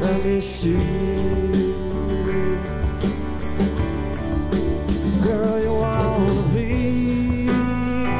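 Live Americana band playing a song: a male lead vocal over strummed acoustic guitar, electric guitar, bass guitar and a drum kit with cymbals.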